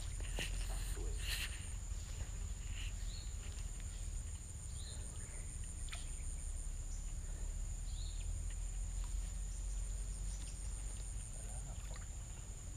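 Insects trilling steadily at a high pitch over a low steady rumble, with a few short faint chirps scattered through.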